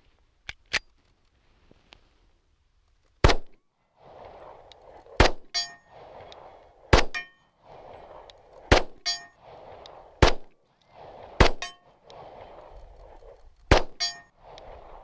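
1911 pistol, a 5-inch Government slide fitted to a Commander frame, fired slowly: seven shots spaced about one and a half to two seconds apart, several followed by a short metallic ring. The mixed-parts pistol cycles and keeps firing.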